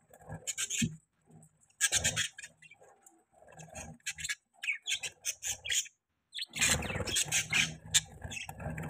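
Budgerigars chirping and chattering in short, irregular bursts, with brief pauses about a second in and again near six seconds.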